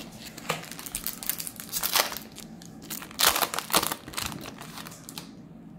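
Foil trading-card pack crinkling as it is torn open by hand and the cards are pulled out. The crinkles are loudest about two seconds in and again around three to four seconds, then die away near the end.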